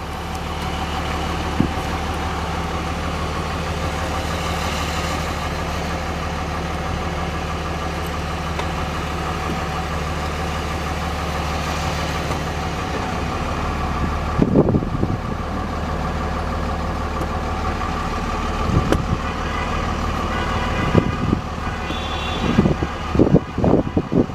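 Car engines running steadily as a group of cars pulls away together, with a few short car-horn honks in the second half that come thicker near the end.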